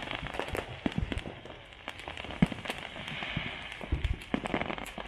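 Fireworks going off: a dense, irregular run of pops and crackling bangs, with one louder bang about halfway through.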